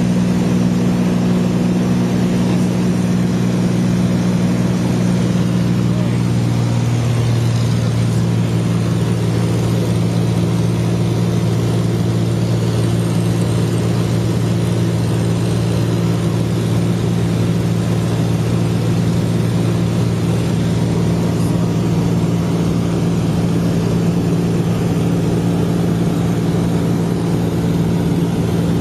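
Light aircraft's engine and propeller droning steadily, heard inside the cabin in cruise flight. The engine note shifts slightly about seven seconds in.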